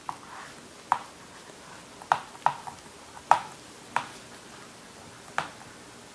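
Dry-erase marker tapping and scratching on a whiteboard as short lines of a circuit diagram are drawn: about seven sharp, irregularly spaced clicks as the tip meets the board, with faint scratching between some of them.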